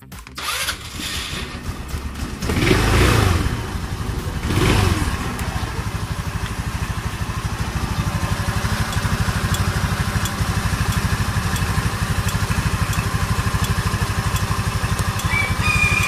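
Motorstar Easyride 150RS scooter's single-cylinder engine starting, revved up and down twice in the first few seconds, then idling steadily with an even pulse. It starts and runs with the side stand raised, as the newly fitted side-stand kill switch should allow.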